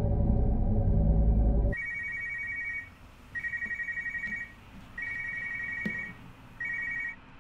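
Low droning background music cuts off abruptly about two seconds in, replaced by a mobile phone ringing: a two-tone electronic trill in four bursts of about a second each with short pauses, the last one cut short.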